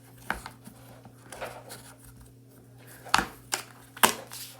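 A few sharp clicks and taps of small objects being handled, the loudest about three and four seconds in, over a low steady hum.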